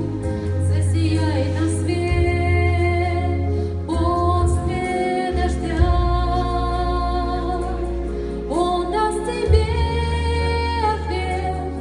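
Song with a woman singing long held notes over a steady bass accompaniment.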